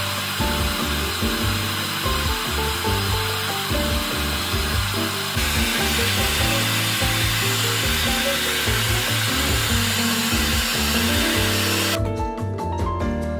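Handheld hair dryer blowing steadily over background music, cutting off abruptly about twelve seconds in so that only the music remains.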